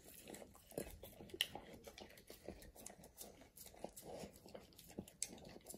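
Alaskan malamute licking and eating food from a bowl: faint, irregular licks, smacks and small clicks.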